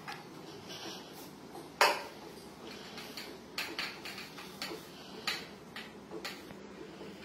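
Stainless-steel kitchenware clinking as powder is measured out: a steel tumbler knocked and tapped on a steel plate. One sharp clink comes about two seconds in, then a few lighter taps.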